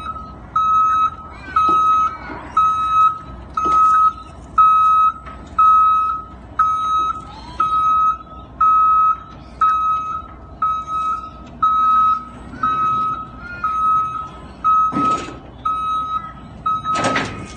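Reversing beeper on a powered stand-on mobility platform, one steady high beep about every second as it backs onto a ground-loading trailer deck. Two clunks near the end as it rolls onto the deck.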